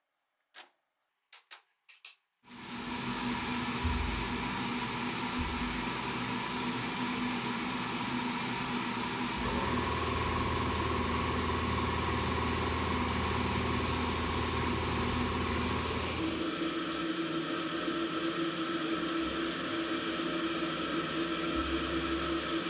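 A few light clicks, then a small motorised tool starts and runs steadily with a hissing edge, its tone shifting about ten seconds in and again about sixteen seconds in.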